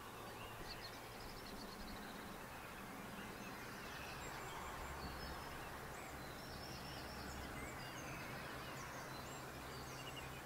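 Faint outdoor ambience: distant birds chirping now and then over a low steady hum.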